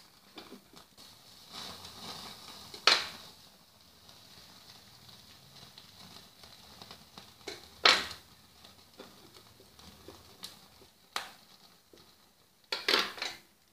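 Metal knife and fork clinking against a wire mesh grill rack while tandoori chicken pieces are turned over a gas burner flame, a few sharp clicks well apart and a short clatter near the end as the rack is shifted. A faint hiss runs between them.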